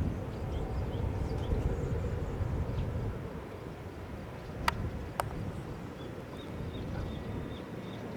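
Distant jet rumble from an Airbus A320neo's Pratt & Whitney PW1127G geared turbofans, weakening after about three seconds as the aircraft moves away. Two sharp clicks come about halfway through, and faint bird chirps sound over the rumble.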